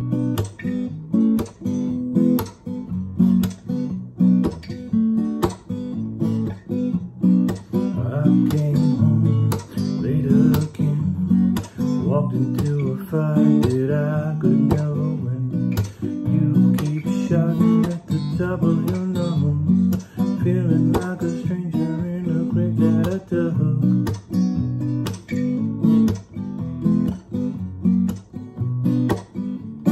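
Acoustic guitar strummed in a steady rhythm, repeating a chord pattern, as the instrumental intro of a song.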